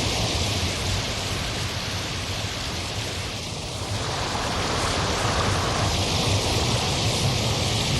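Steady rushing of sea waves and surf.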